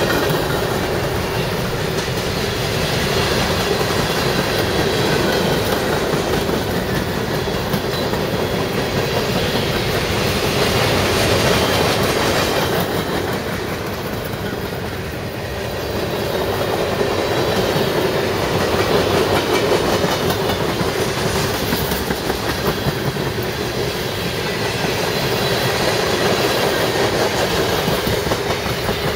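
Freight train cars rolling past at track side: a steady rumble of steel wheels on rail, easing slightly about halfway, with regular clicks over the rail joints near the end.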